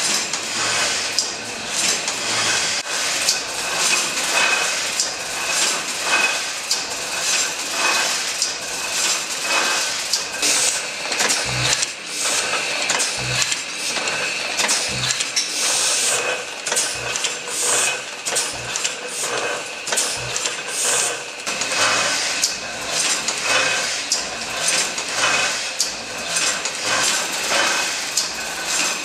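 Motor-driven letterpress printing press running, its mechanism clicking and clanking in a steady repeating rhythm.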